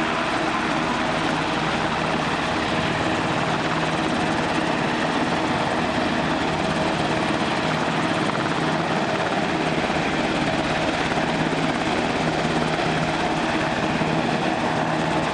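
UH-60J Black Hawk rescue helicopter's rotors and twin turboshaft engines running steadily.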